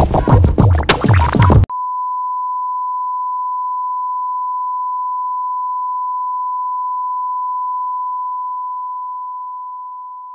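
Music with a beat cuts off abruptly less than two seconds in. A steady single-pitch test-tone beep, the reference tone played with TV colour bars, takes over and fades out near the end.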